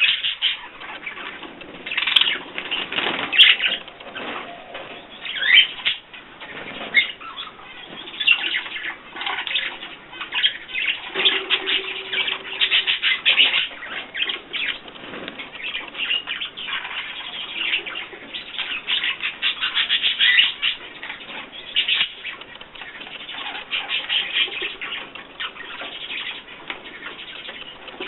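Pet birds fluttering their wings and chirping, a dense, continuous run of rustling wingbeats and short calls.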